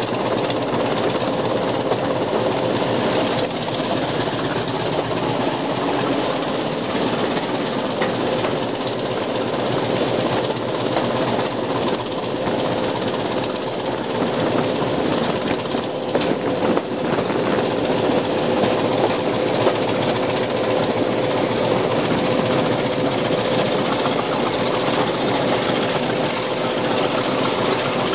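English Electric Class 20 diesel locomotive on the move, its eight-cylinder engine running steadily with its characteristic clattering 'chopper' beat over the sound of the wheels on the rails. A high whistle runs above it and shifts pitch about two-thirds of the way through.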